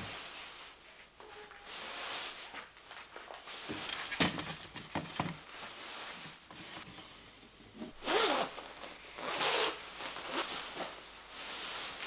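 A clothing zipper being pulled, loudest in two quick runs about eight and nine and a half seconds in, amid rustling of clothes and shoes being handled.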